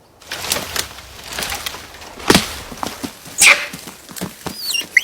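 Male langur monkeys fighting: a burst of scuffling, slaps and thuds, with short shrill cries near the end.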